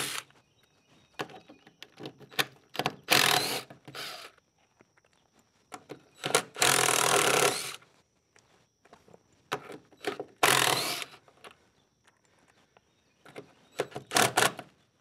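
DeWalt 20-volt cordless impact driver hammering 3/8-inch lag screws out of a door-frame hinge, in four or five separate bursts, the longest over a second, with short pauses between.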